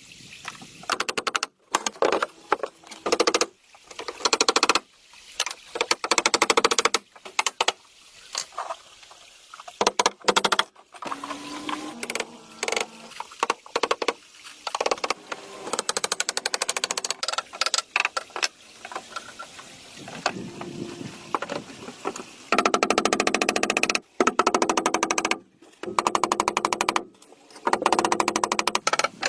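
Rapid runs of sharp clicks or knocks, each run lasting one to two seconds with short gaps between, the longest runs near the end.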